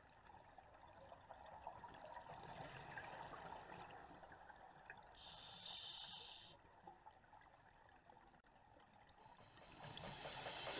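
Faint underwater sound of divers' exhaled air bubbling and gurgling from their regulators, with a brief brighter hiss about five seconds in.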